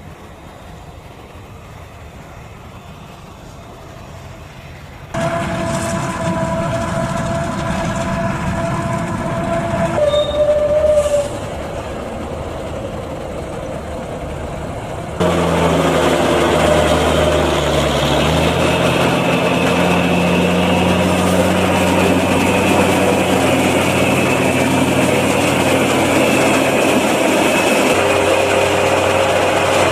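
Heavy farm machinery in several cut-together shots: a quieter stretch of a Claas Jaguar forage harvester working across the field, then tractor engines running with steady whining tones. From about halfway on, the loudest part: a Fendt tractor running while its Bergmann forage wagon's floor conveyor and beater rollers unload chopped maize, with the engine note changing a few seconds in.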